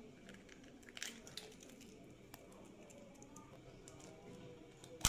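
Eggshells cracking against the rim of a stainless steel bowl: a cluster of faint sharp taps and crackles about a second in, a single tick in the middle, and a louder crack right at the end, over a low steady hum.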